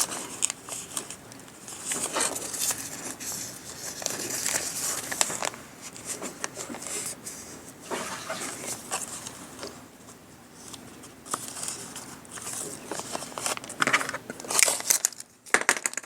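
A cellophane bag and paper card being handled, rustling and crinkling irregularly, with scattered light taps and clicks and a few sharper ones near the end.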